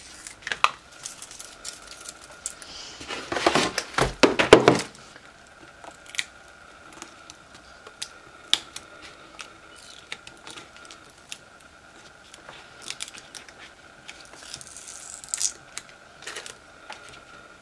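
Adhesive vinyl stencil film being weeded: the cut pieces peeled off their backing with a crackling, tearing rasp that is loudest about three to five seconds in, then small scattered ticks and scrapes as a weeding hook picks at the letter.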